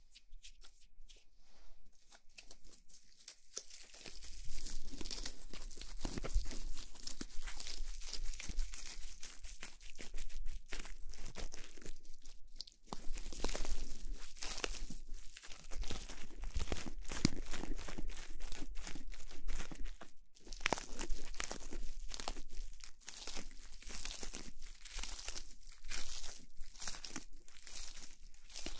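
Close-miked crinkling and crackling, dense and irregular, quieter for the first few seconds and then in long stretches with brief pauses, over a faint steady low hum.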